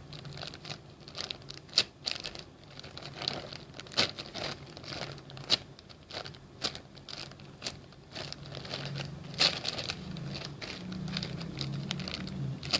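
Hands handling small objects close to the microphone: irregular light taps and clicks with some plastic crinkling, over a steady low hum.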